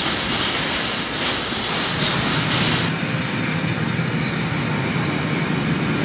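Freight train of closed sliding-wall wagons rolling past close by: a steady rumble and rattle of wheels on rail. About three seconds in the hiss drops away and the sound turns to a lower rumble.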